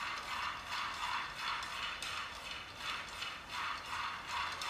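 A cooking utensil scraping and stirring in a frying pan on a gas stove: a rhythmic, scratchy scraping about two strokes a second.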